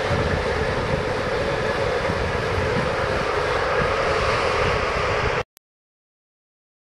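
A freight train passing on a viaduct, a steady noise mixed with wind on the microphone, cutting off suddenly about five and a half seconds in.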